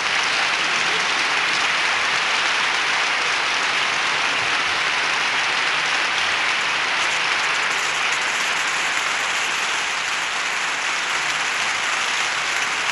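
Audience applauding steadily throughout, a dense, unbroken clapping.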